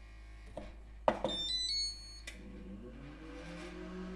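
Gemelli Steak Grille electric infrared grill starting up: a few clicks and a short high electronic beep tune from its control panel about a second in, then its fan motor starts, a hum that rises in pitch and settles into a steady drone.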